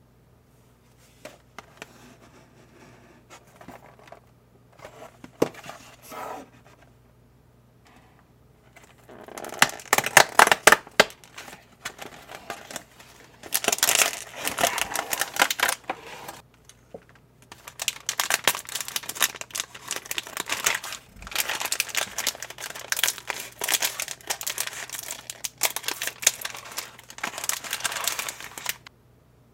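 Plastic candy-kit packaging crinkling and rustling in the hands as the bag is pulled out of its cardboard box and torn open. There are light handling noises for the first several seconds, then loud, dense crinkling in long bursts for the rest.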